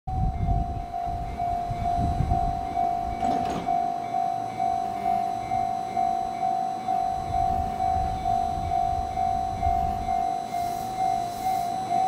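Railway level-crossing alarm ringing one repeated electronic bell tone, about two to three strikes a second, over the low rumble of a train at the station. A brief hiss comes a little over three seconds in.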